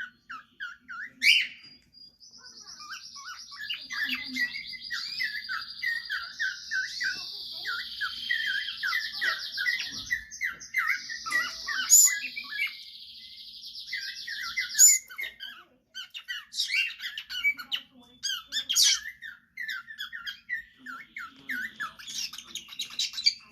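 Cockatiel chattering: many quick short chirps, with a long continuous buzzy warble over much of the first half and a few sharp clicks. The owner takes this chatter for talking and suspects the bird sold as a female is a male.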